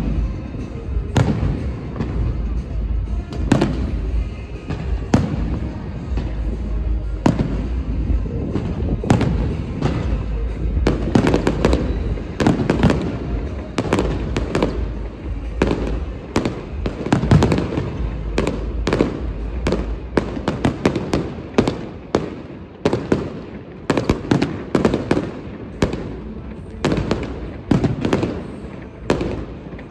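Fireworks and firecrackers going off in a dense run of bangs and crackles, several a second, turning into sharper separate bangs toward the end.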